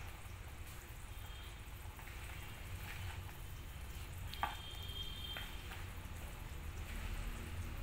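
Hand rubbing butter into flour in a bowl: soft, gritty crumbling and rustling. A faint high tone sounds briefly about halfway through, just after a light tap.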